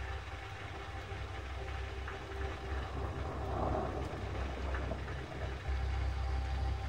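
Steady rain falling, under low, droning music: a deep, constant drone with a few held tones above it, swelling briefly in the middle.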